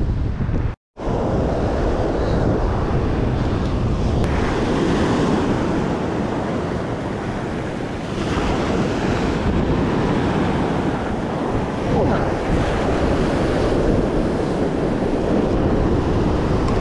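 Surf breaking on a beach with wind buffeting the microphone, a steady rushing noise with a split-second gap of silence about a second in.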